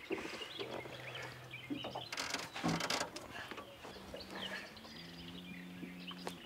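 A hooked pike splashing at the boat's side as it is grabbed by hand, with a burst of splashing about two seconds in. Songbirds chirp throughout, over a low steady hum.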